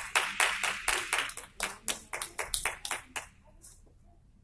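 Hand clapping: a run of distinct claps, about six a second, that dies away a little after three seconds in.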